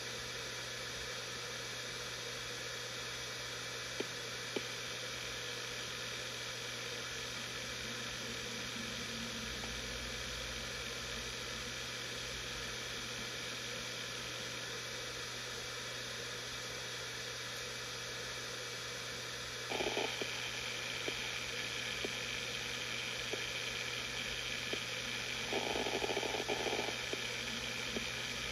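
Samsung SpinPoint F1 HD502IJ 7200 rpm hard drive spinning with a steady hum and hiss, and a few faint clicks of its heads seeking. About two-thirds through it gets louder, and there is a brief rattle of seek activity near the end.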